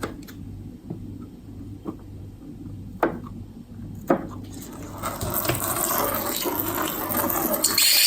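A few light taps of objects being set down, then liquid pouring or running steadily into a container from about five seconds in.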